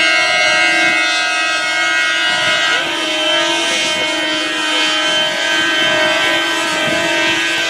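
Several horns blaring at once in a long unbroken blast, with crowd voices underneath.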